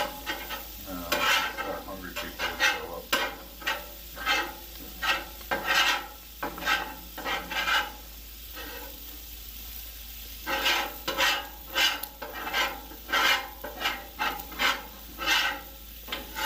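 Metal spatulas scraping and pushing food across a Blackstone griddle's steel cooking surface, about two strokes a second, over the sizzle of food frying. The scraping stops for a couple of seconds past the middle, then starts again.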